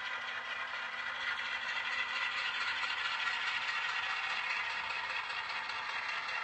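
HO scale freight cars and locomotive rolling along the track as the train is pushed back, a steady rolling noise that grows a little louder about a second in.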